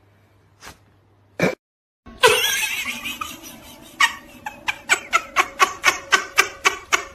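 A short knock about one and a half seconds in. Then a person laughing hard, in quick regular bursts of about five a second from about four seconds in.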